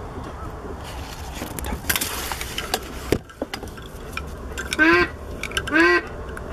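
Three loud goose honks about a second apart, starting about five seconds in, each a short call that rises and falls in pitch. Before them come rustling and a few handling clicks.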